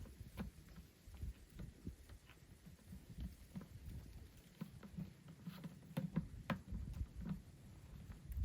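Irregular light clicks and knocks, a few a second, over soft low thumps.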